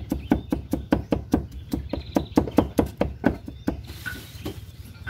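Large knife chopping spice roots on a wooden stump chopping block: fast, even knocks about five a second, stopping near the end.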